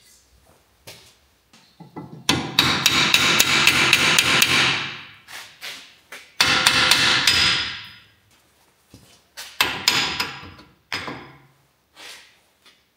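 Hammer blows on the front wheel hub bearing unit of a 2016 Volkswagen Jetta, knocking it out of the steering knuckle. Two quick runs of ringing metal strikes are followed by a few single blows near the end.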